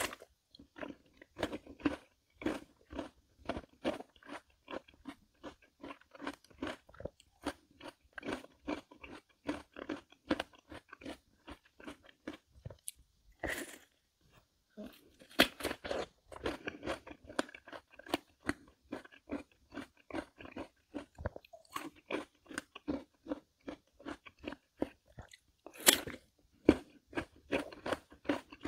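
Crisp Korean melon (chamoe) being bitten and chewed, a wet crunch about twice a second, with a few louder fresh bites in the middle and near the end.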